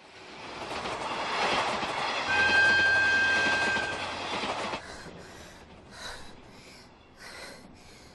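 Passenger train sound effect crossing an elevated viaduct: a rush of train noise builds up, peaks with a steady high tone ringing for about a second and a half, and drops away about five seconds in, leaving softer intermittent sounds.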